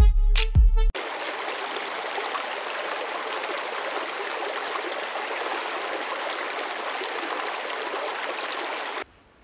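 Music ends about a second in. Then water spills steadily over a low timber dam at a lake outlet, a constant rushing splash that cuts off abruptly near the end.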